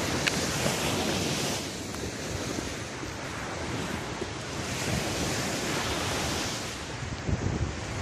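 Small sea waves breaking and washing up a sandy beach, with wind buffeting the microphone. The surf swells louder twice, about a second in and again around five to six seconds in.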